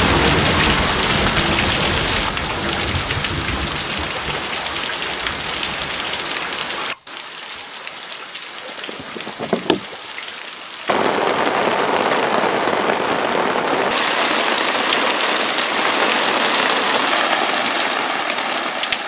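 Heavy, steady rainfall, with a low rumble of thunder under it in the first few seconds. About seven seconds in the rain cuts to a quieter patter with a few sharp drips, then comes back loud and dense about eleven seconds in.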